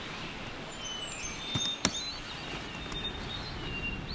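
Outdoor ambience: a steady noise bed with a few short, high bird chirps. Two sharp clicks come close together about a second and a half in, the second the loudest sound.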